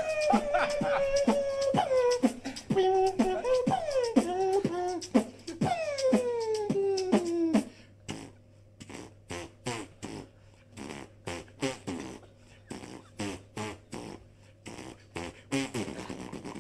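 Human beatboxing: for about the first half, a hummed tone that slides down in pitch again and again over mouth-made kick and snare hits, then the hum drops out and only a quieter, quick run of sharp clicks and percussive mouth hits goes on.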